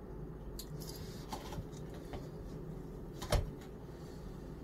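Quiet room tone with a steady low hum, a few faint ticks and one sharp click about three seconds in.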